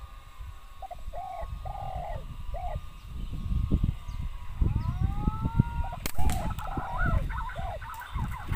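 Birds calling in short, repeated arched calls, with a rising whistled call just before a single sharp air rifle shot about six seconds in; the calling goes on after the shot.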